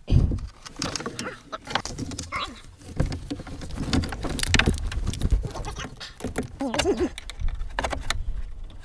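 Irregular clicks, knocks and scrapes of hands and parts being handled while a power steering hose is fitted to its line. There is no engine running.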